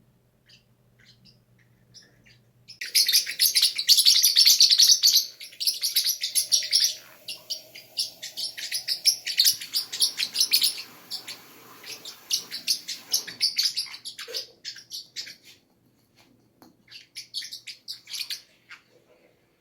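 Small pet parrots chirping: a few faint chirps, then from about three seconds in a dense run of rapid, high chirps that thins out into scattered chirps, pauses briefly and picks up again near the end.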